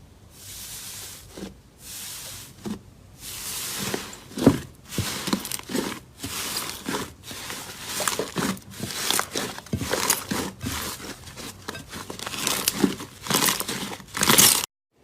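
Slime being worked by hand, a fast irregular run of crackly, tearing pops as it is squeezed, stretched and pulled apart. It cuts off suddenly near the end.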